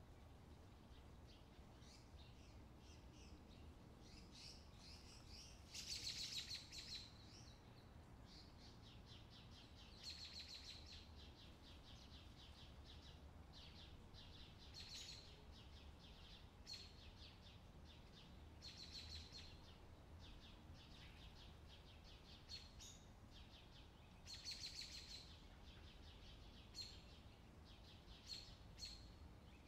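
Faint bird chirps and short high trills, repeated every few seconds over near silence; the loudest trills come about six seconds in and again near the end.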